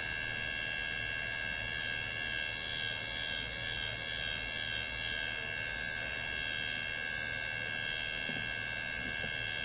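Small motor-driven civil defense siren, its motor spinning the rotor, sounding a steady high tone that wavers slightly midway.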